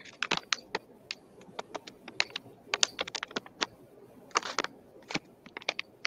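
Sheet of office paper being folded and creased by hand: a run of irregular, crisp crackles and clicks.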